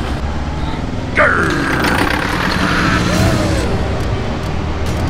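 A vehicle engine running steadily. About a second in, a sudden louder sound slides down in pitch, and a short rising-and-falling tone follows a couple of seconds later.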